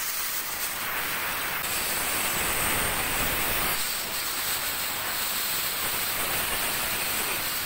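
Small electric angle grinder with a cutting disc running at full speed and cutting blue PVC pipe fittings: a steady, loud hiss with a high motor whine.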